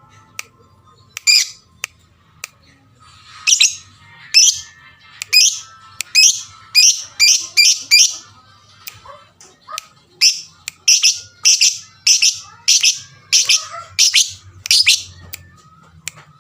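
Lovebird giving a rapid series of short, shrill calls, about one to two a second, a lure call meant to set other lovebirds calling.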